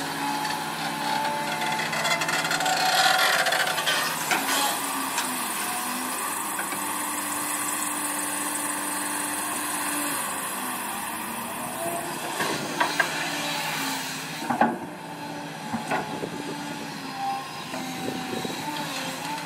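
Doosan DX225LCA excavator's diesel engine running steadily under working load while it digs and loads sand into a dump truck. Sand rushes and scrapes throughout, and a few sharp knocks of the bucket come in the second half.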